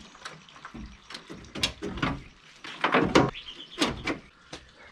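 Steel front panel (radiator support) of a VW Golf Mk2 clunking and scraping against the car's front end as it is set in place by hand. Several uneven knocks and rattles, the loudest about three seconds in.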